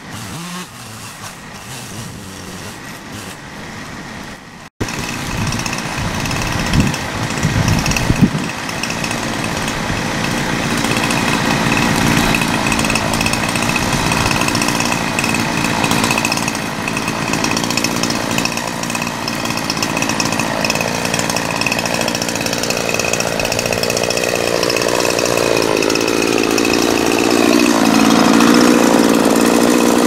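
Chainsaw running while limbing a felled pine: quieter for the first few seconds, then louder after a sudden break, with a couple of sharp revs soon after. It keeps running and gets louder toward the end.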